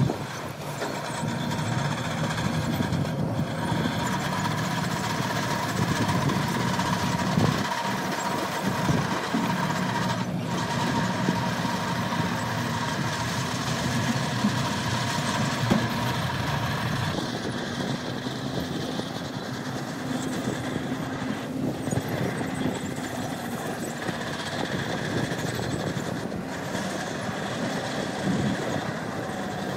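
Heavy diesel engines of earthmoving machinery running steadily, a continuous low engine drone that holds its level without pauses.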